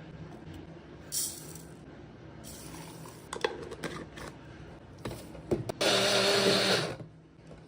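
A 500-watt personal blender's motor running in one short burst of about a second near the end, after several clicks and knocks.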